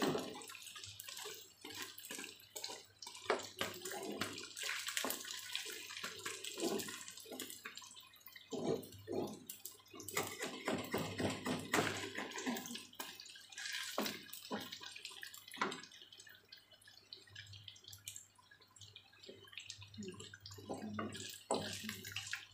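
Battered tempeh slices frying in shallow oil in a wok: a steady sizzle full of crackles and pops, with a wooden spatula scraping and knocking against the pan as the pieces are turned. The sizzle thins out past the middle.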